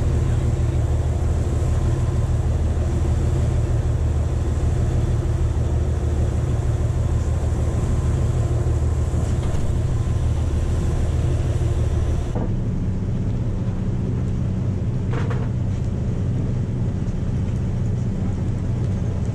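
Tour boat's engine running steadily, a low drone with the rush of the wake over it. About twelve seconds in it changes abruptly to a slightly quieter hum at a different pitch with far less hiss, and a faint brief knock follows a few seconds later.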